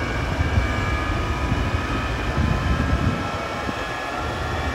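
Bone Shaker jet truck's jet engine running at idle: a steady rush with a faint high turbine whine over it.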